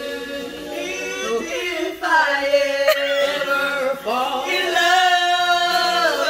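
Women singing karaoke, one into a microphone, with two long held notes.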